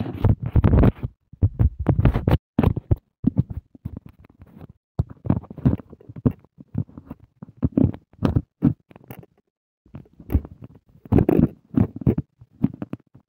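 Handling noise from a phone held close to its microphone: rubbing and bumping as it is turned and moved, in irregular bursts with short silent gaps.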